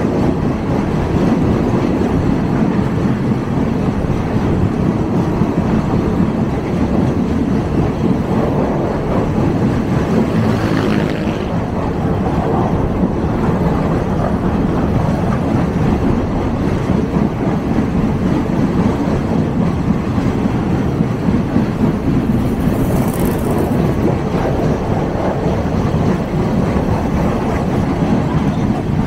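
State Railway of Thailand diesel commuter train running, heard from on board: a steady, loud rumble of engine and wheels on the track. There is a brief brighter surge about ten seconds in and a short high hiss a little past twenty seconds.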